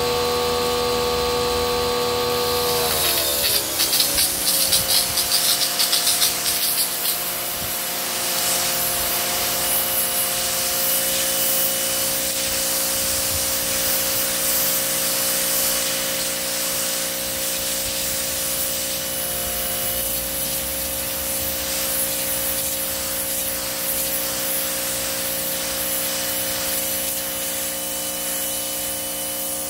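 Parkside PHD 170 D2 electric pressure washer running with a steady hum. The hum drops in pitch about three seconds in, and the water jet hisses against the concrete paving, loudest and pulsing for a few seconds after the drop.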